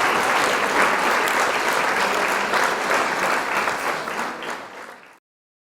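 Applause: many hands clapping in a dense patter that fades and cuts off abruptly about five seconds in.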